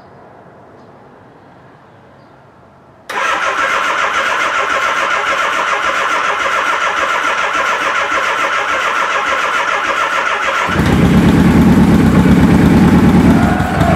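Suzuki GS550's electric starter cranking the freshly rebuilt inline-four on choke. Cranking starts suddenly about three seconds in and runs steadily for about seven seconds; the engine then catches and keeps running, louder and deeper: a successful first start after the top-end rebuild.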